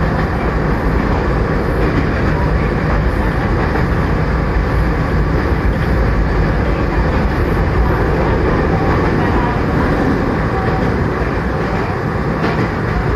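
Kobe Electric Railway commuter train running along the line, heard from inside the passenger car: a steady low noise of wheels on rails and the moving car.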